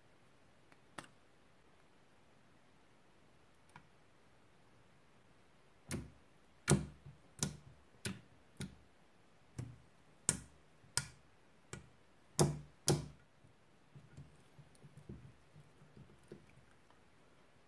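Hands pressing and kneading white slime mixed with lipstick chunks in a glass dish, making about a dozen sharp squishy pops and clicks a little under a second apart, then a run of softer small pops. One faint click about a second in.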